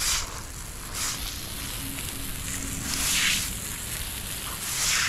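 A traditional Korean bush-clover twig broom sweeping muddy water across a concrete path: four wet swishing strokes, one to two seconds apart, the third the longest.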